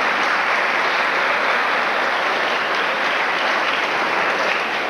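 Audience applauding steadily, a dense even clapping from many hands.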